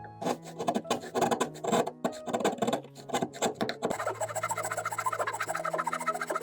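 Hand tools working wood, with scraping and rasping strokes; from about four seconds in they turn into a fast, even run. Plucked-string background music plays with held notes underneath.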